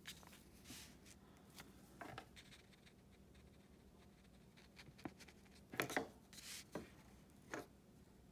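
Faint scratching and rustling of a felt-tip marker and worksheet paper in short scattered strokes, as the marker dots a point on a graph grid; the loudest cluster comes a little after halfway.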